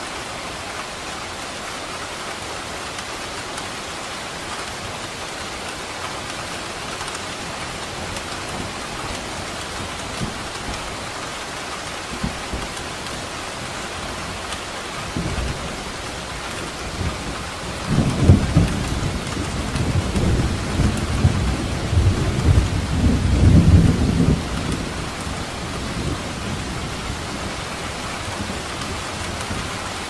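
Steady rain falling, with a long roll of thunder that builds about halfway through, rumbles loudest for several seconds and then fades away before the end.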